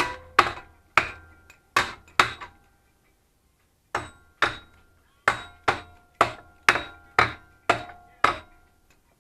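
Hammer blows on a metal pit bike part, about fifteen strikes in two runs with a pause around three seconds in. Many of the strikes ring briefly with a metallic note.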